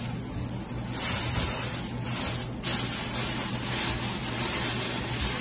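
Thin plastic grocery bags rustling and crinkling in irregular surges as produce is handled and pulled out of them.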